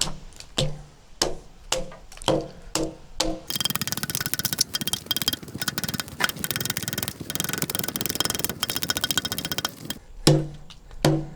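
Background music of short, percussive plucked notes, broken from about three and a half seconds in to about ten seconds in by a dense, rattling, buzzing stretch.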